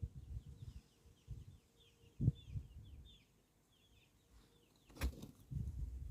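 Small birds chirping in a run of quick, descending notes for the first three seconds or so, over low thumps and rumble. A sharp knock about five seconds in.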